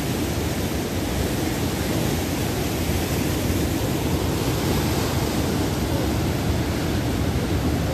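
Ocean surf breaking and churning around the rocks and pier pilings, a steady rushing of water.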